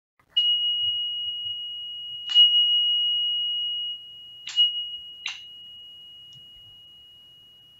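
Small meditation bell or chime struck four times, the last two close together. Each strike rings one clear high tone that sustains and slowly fades, the usual signal closing a meditation practice.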